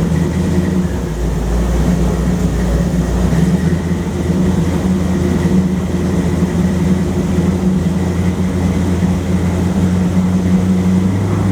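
Car engine running steadily at a constant speed, a low even hum with no revving.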